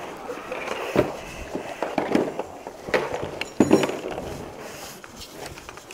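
A backpack being handled and unpacked: irregular knocks and rustling of its fabric and straps.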